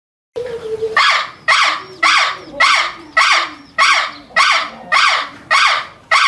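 An animal giving a rapid series of about ten loud, harsh calls, roughly two a second, starting abruptly less than half a second in.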